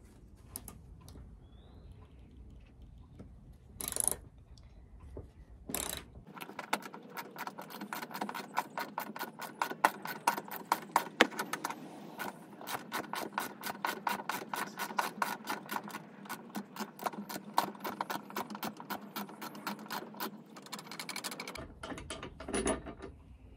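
Socket ratchet wrench clicking rapidly and steadily for about fifteen seconds while van seat mounting bolts are undone. A couple of sharp knocks come a few seconds before the clicking starts.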